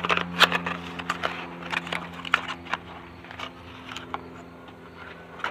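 Cardboard box and packaging of a new crankshaft position sensor being opened and handled: a string of irregular clicks and crinkles, thickest in the first three seconds, over a steady low hum.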